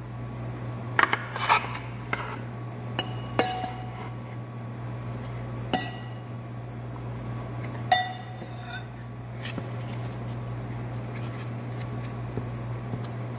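Several sharp clinks of utensils on dishes while samosas are being filled, the loudest near the end of the tapping ringing briefly, over a steady low hum.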